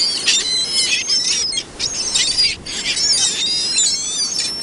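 A flock of ring-billed gulls calling, many short high-pitched cries overlapping one another with only brief breaks.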